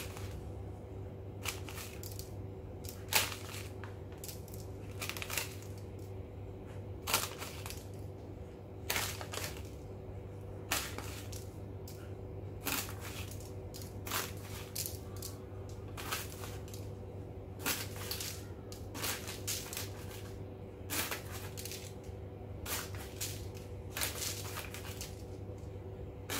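Small plastic bag of sesame seeds crinkling in short, irregular rustles as it is handled and shaken over the dough, over a steady low hum.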